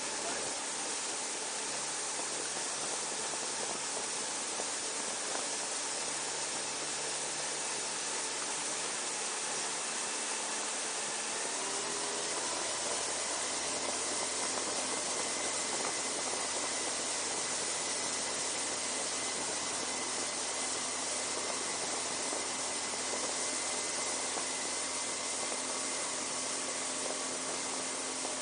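Small boat under way: a steady loud hiss of wind and water over the boat's running motor. The motor's pitch shifts and rises about twelve seconds in.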